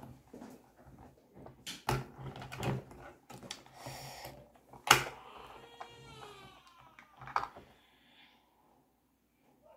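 Hard plastic toy playset parts clicking and knocking as they are handled and pressed into place, a few sharp clicks among softer rattling.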